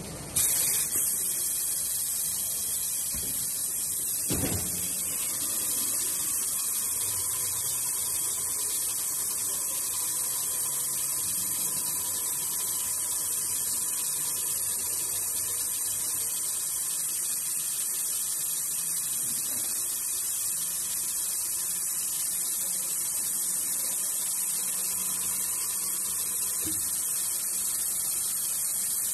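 Automatic kettle-bottom sanding machine's abrasive belt grinding the bottom of a spinning metal kettle: a steady high hiss over the machine's motor hum, starting about half a second in.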